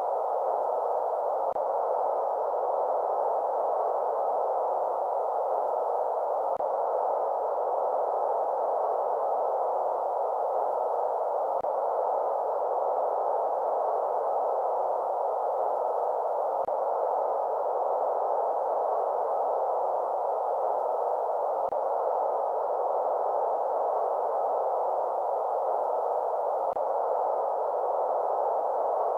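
Steady artificial white noise for lulling a baby to sleep: an even, unchanging hiss held in a middle band, with no high or low rush. A faint click comes about every five seconds.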